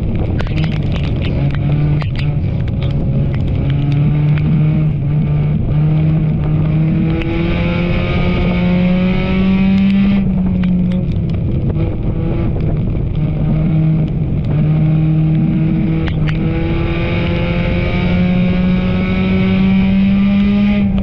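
Enduro race car engine running hard on the track, its pitch climbing as it accelerates and dropping back as it lifts, over and over every few seconds. Scattered sharp clacks run through it.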